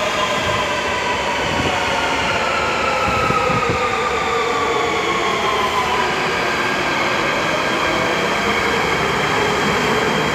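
Nuremberg U-Bahn train pulling out of an underground station: a steady rumble of wheels on rail, with the drive's whine heard as several tones gliding slowly downward in pitch as the cars pass.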